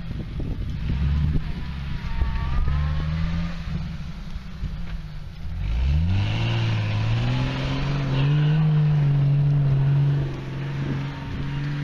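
Off-road vehicle's engine running rough and uneven at low revs, then revving up steeply about six seconds in and held steady at high revs.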